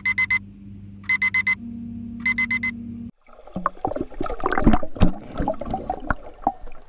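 Phone alarm beeping in three bursts of four quick beeps over a low steady hum, cutting off suddenly about three seconds in. It is followed by irregular water splashing and bubbling.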